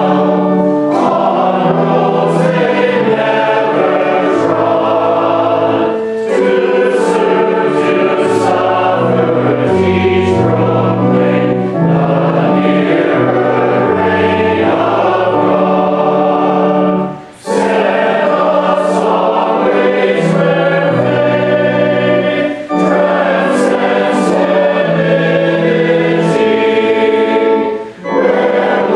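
A group of voices singing a hymn together, in long sustained phrases with short pauses between them.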